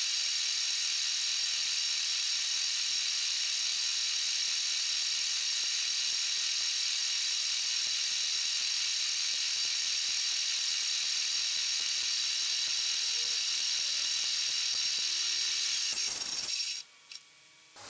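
Milling machine running steadily with a high-pitched whine while a snapped exhaust manifold bolt is machined down to a flat surface; it stops abruptly near the end.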